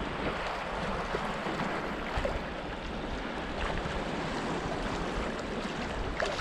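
Steady wind buffeting the microphone over small waves washing against shoreline rocks.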